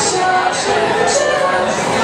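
Live music played in a bar, with a steady beat and a wavering melody line, over crowd talk.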